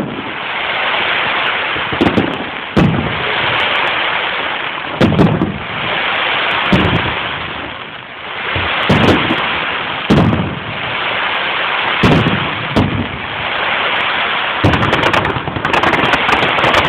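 Fireworks display: shell bursts banging every second or two over a steady hissing crackle, breaking into a rapid run of crackles near the end.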